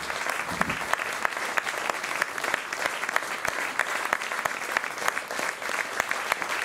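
Theatre audience applauding: dense, steady clapping from many hands during the curtain-call bows.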